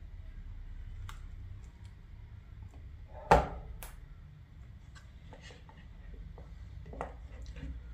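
Small clicks and taps from handling the mold and a drain tube, with one sharp knock a little before halfway and a smaller knock near the end, over a low steady hum.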